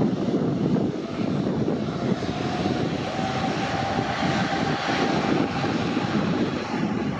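Airbus A330-200 twin turbofan engines at take-off power during the take-off roll: a loud, steady jet rumble, with a faint whine that rises slightly in pitch in the second half.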